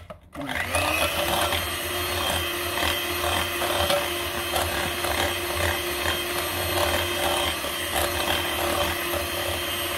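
Electric hand mixer running, its beaters whirring through thick cake batter in a glass bowl. The motor spins up just after the start and winds down near the end.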